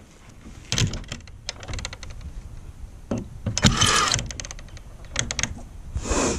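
Irregular bursts of clicking and rattling as a handheld tool works on a metal latch on a wooden coop door, the longest burst near the middle.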